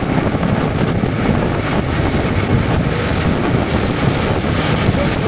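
Steady rumble and rattle of a moving vehicle heard from on board, with a dense patter of fine rattling ticks.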